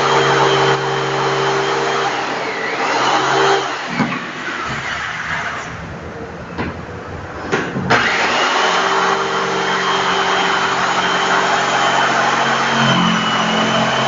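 Electric jigsaw running as it cuts circular speaker holes in the wooden top panel of a speaker box, a steady motor whine with the rasp of the blade. Midway it eases off for a few seconds with a few sharp knocks, then comes back up to full speed about eight seconds in.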